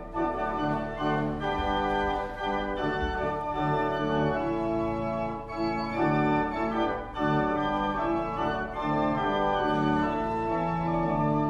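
Church organ playing a hymn tune in sustained chords that move from note to note.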